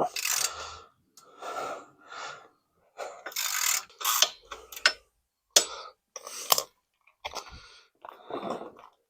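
A man's heavy, strained breathing and grunts in short bursts while he works a tight bolt free, with a few sharp metal clicks in the middle.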